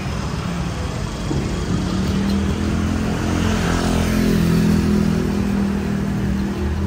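A motor vehicle's engine passing close on the street, growing louder to a peak about four to five seconds in, over steady traffic noise.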